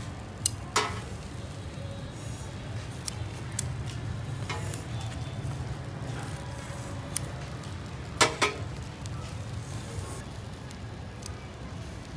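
Kitchen scissors snipping grilled fish and metal utensils clicking against a plate: several sharp clicks, the loudest pair about eight seconds in, over a low steady background rumble.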